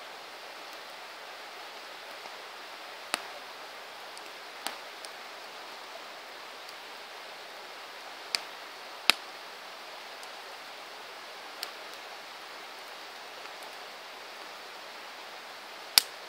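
Wood campfire burning with a steady soft hiss and scattered sharp crackles and pops, about half a dozen, the loudest coming near the end.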